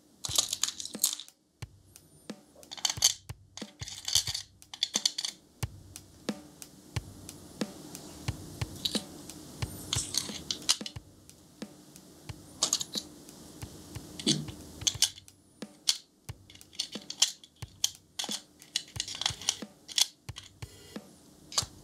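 Small metal screws clicking and clinking against metal tweezers and a 3D-printed plastic tray as they are set into its compartments, in irregular small taps and short metallic rattles.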